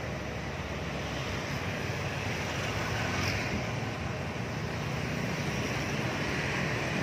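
Steady road traffic noise: an even rumble of passing vehicles with wind on the microphone.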